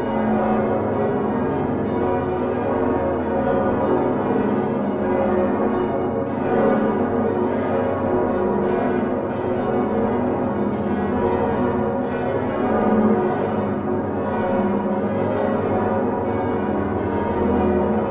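The Utrecht Dom tower's swinging bronze church bells, among them Geryt van Wou's 1505 bells, swung on straight yokes with flying clappers. Many bells ring together in a dense, continuous, overlapping peal that holds steady.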